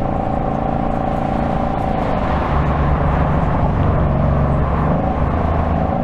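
2025 Ford Mustang GT's 5.0-litre V8 running on the move. About two seconds in, its note drops in pitch and turns deeper and slightly louder for a few seconds.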